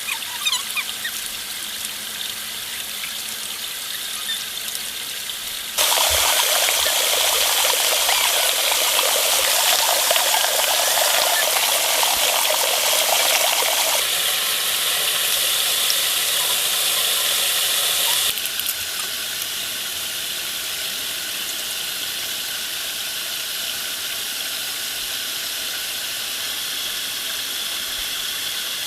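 Steady water noise, an even hiss with no rhythm. It turns abruptly louder and fuller about six seconds in, eases at about fourteen seconds, and drops back to the softer level at about eighteen seconds.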